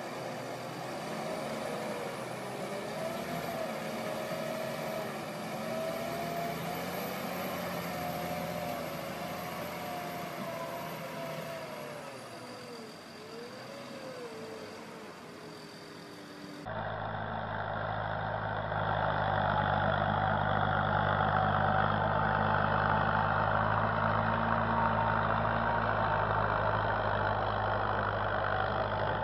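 Farm tractor diesel engines working through deep mud. For the first two-thirds the engine note wavers up and down under load. After an abrupt change it becomes a louder, lower, steady engine sound.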